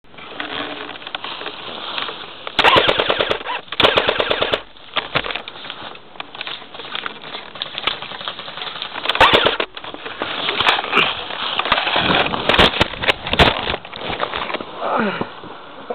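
Airsoft rifle firing on full auto, rapid trains of clicking shots in bursts: two short bursts a few seconds in, another near ten seconds, and a longer spell of shots toward the end.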